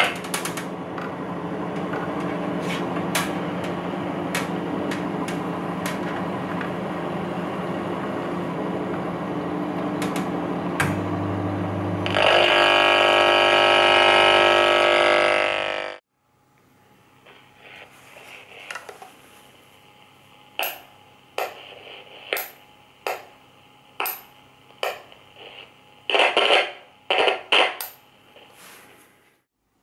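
AM radio speaker buzzing with interference picked up from a running microwave oven: a harsh steady hum that grows louder about twelve seconds in and cuts off abruptly. Afterwards the radio gives only scattered clicks and crackles of static.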